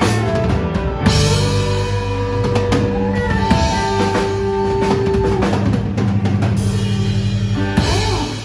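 Live country band playing the closing bars of a song: fiddle, guitars and bass holding long chords over drums, with a cymbal crash about a second in and a final hit near the end as the music dies away.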